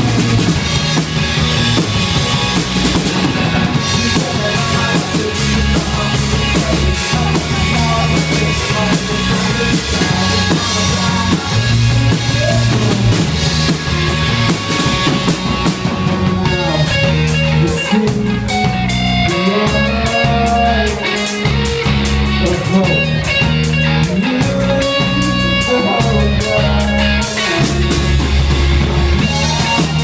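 Live band playing loudly: acoustic guitar strummed over a drum kit, with a melody line gliding above it in the second half.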